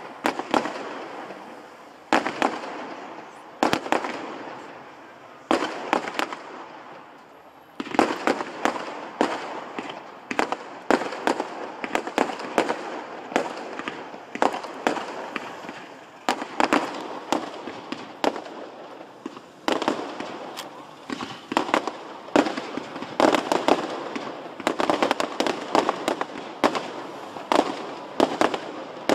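Fireworks display: a string of sharp bangs from shells launching and bursting, each trailing off in an echo. The bangs come singly at first, pause briefly about six seconds in, then follow in a rapid, dense barrage.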